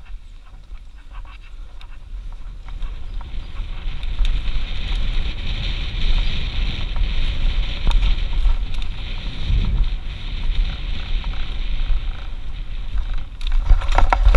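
Wind buffeting a helmet-mounted camera's microphone on a fast mountain-bike descent over a dirt trail, with tyre noise and short rattles and knocks from the bike. It grows louder after the first few seconds and is loudest near the end.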